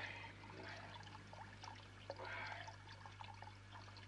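Quiet room tone on an old TV soundtrack: a steady low hum under faint hiss, with a couple of soft breathy sounds at the start and about two seconds in.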